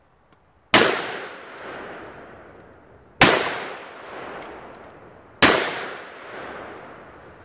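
Three shots from a cap-and-ball black powder revolver loaded with Triple Seven black powder substitute, about two and a half seconds apart. Each shot is followed by an echo fading over about two seconds.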